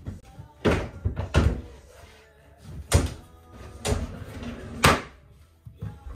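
About six sharp knocks and thuds of a large drawer being pushed and knocked into place in the base of a daybed.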